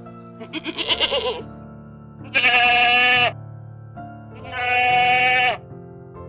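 An animal calling three times over background music: first a short quavering call, then two long, even calls about two seconds apart.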